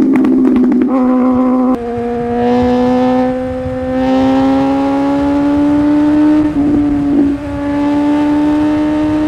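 Sport motorcycle's engine under hard acceleration at high revs: quick upshifts in the first two seconds, then a long pull with the pitch rising slowly, and a brief break in the note about two-thirds of the way through, likely another shift.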